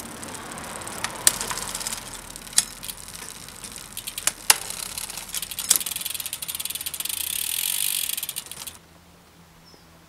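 Bicycle drivetrain turned by hand: the chain runs over the chainrings through a Shimano XTR M950 front derailleur, with sharp clicks a few times. Then comes a steady, high ratcheting hiss for about three seconds, which stops suddenly near the end. The front shifting is being tested and only just works, messily, which the builder suspects comes from a slightly too-long bottom bracket.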